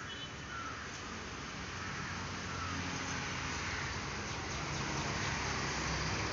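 Steady outdoor background hum that grows louder toward the end, with a few short, faint bird calls near the start.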